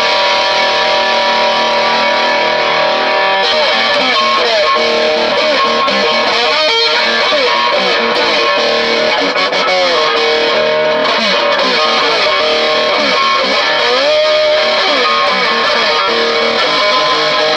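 Distorted electric guitar played through an amp: a line of held notes with several string bends. The tone is loose and low-ended rather than tight, on a guitar whose tuning keeps drifting.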